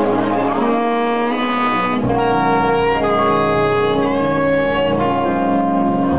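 Saxophone playing a jazz melody of held notes that step from one pitch to the next, with a live band behind it.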